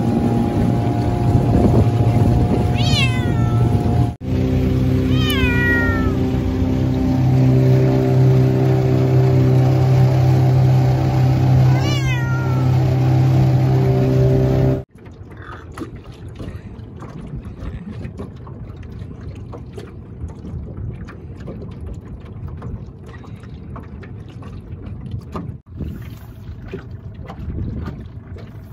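A cat meows three times, each call falling in pitch, over the steady drone of a boat motor. About halfway through, the motor drone stops abruptly and only a quieter rush of wind and water remains.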